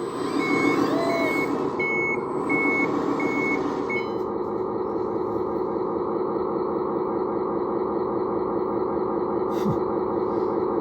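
The electronic sound module of a 1/14-scale RC Volvo A40G articulated dump truck plays a steady diesel-engine sound through its small speaker. A reversing alarm beeps about six times at a steady pitch over the first four seconds, then stops while the engine sound carries on. A single click comes near the end.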